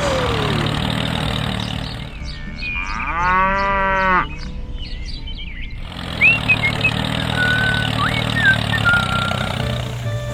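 A drawn-out animal call, like a cow mooing, about three seconds in, then a few short bird chirps, over a steady low hum.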